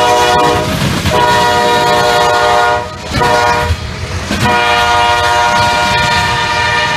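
CSX freight locomotive's air horn sounding the grade-crossing signal: the end of one long blast, a second long blast, a short blast, then a final long blast held on. Underneath is the low rumble of the passing double-stack freight train.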